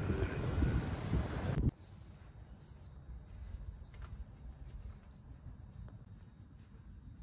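Wind buffeting the microphone, which cuts off abruptly about a second and a half in. Then a bird chirping repeatedly in short, high notes, clustered in the middle and growing fainter toward the end, over quiet outdoor background.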